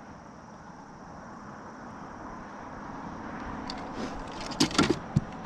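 A steady rushing noise that slowly grows louder, then a quick cluster of sharp knocks near the end as gear is handled aboard a fishing kayak.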